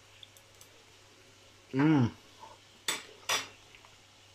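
A metal fork clinks twice against a hard surface, about three seconds in, as it is put down after a taste of hot chicken. A moment before, a man gives a short 'mmm' of approval while chewing.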